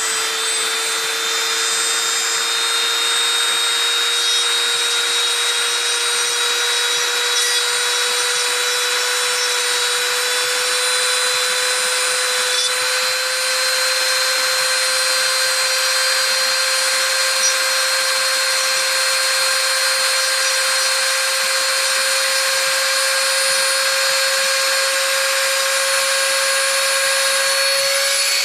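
Small high-speed rotary tool running without a break, a steady high whine that creeps slightly higher in pitch as it grinds down a plastic toy-car wheel until it is about flush.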